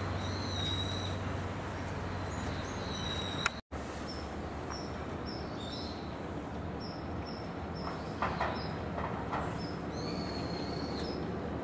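Birds chirping repeatedly over a steady low rumble. The sound cuts out completely for a moment about three and a half seconds in.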